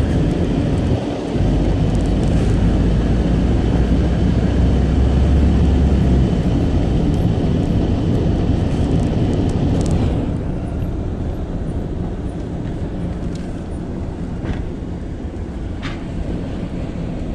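A car driving slowly over cobblestones, heard from inside the cabin: a steady low engine and tyre rumble with a hiss above it. The hiss fades and the noise eases a little about ten seconds in.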